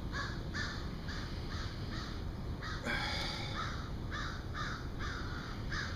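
Crows cawing over and over, about two calls a second, with one longer, louder call about halfway through.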